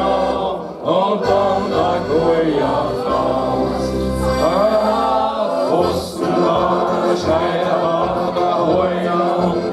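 A group of men and women singing a German song together.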